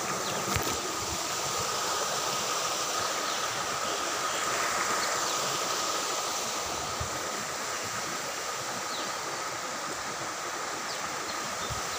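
Steady rushing of a shallow rocky stream running over and between stones, with a thin steady high tone through it.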